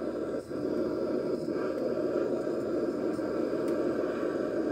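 Honeybees humming steadily at the hive entrances, with a few faint clicks as the metal bee smoker is handled.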